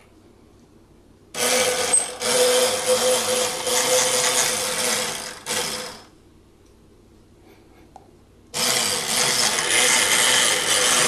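Electric drive of a B9 robot arm's lead screw running the carriage in along its drawer slide: a steady motor hum with mechanical rattle from the screw, slide and drag chain. It runs twice, about four seconds each time, starting and stopping abruptly with a pause between.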